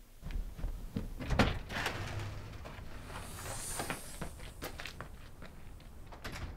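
Footsteps and a house door opening and closing: scattered knocks and thuds, the loudest about a second and a half in.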